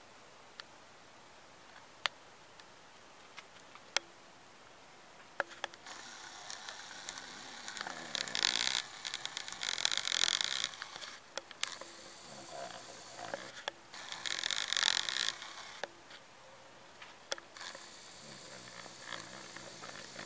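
Handling noise on the recording device: a few sharp single clicks over the first few seconds, then irregular rubbing and scraping from about six seconds on, loudest in a few bursts about a second long.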